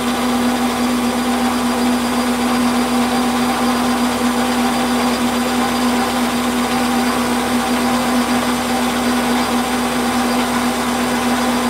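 Warco metal lathe running steadily, a steady hum with hiss from its motor and gearing, while the turning tool takes a light skim cut along the outside of an aluminium workpiece.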